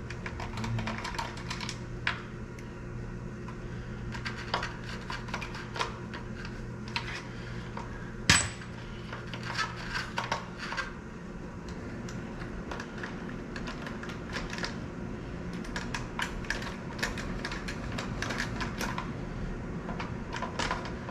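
Scattered metal clicks and clinks of bolts and hand tools being worked loose and handled on the bottom end of an Audi V8 engine. About eight seconds in comes one sharp metal clank that rings briefly, over a steady low hum.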